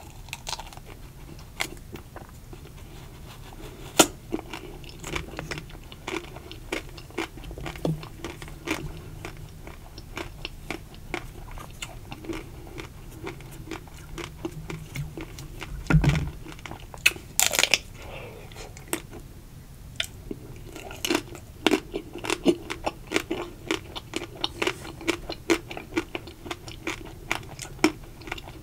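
Biting and chewing the crisp ruby-chocolate shell of ice cream bars: a steady run of short crackling crunches and mouth clicks, with a louder burst of crunching about halfway through.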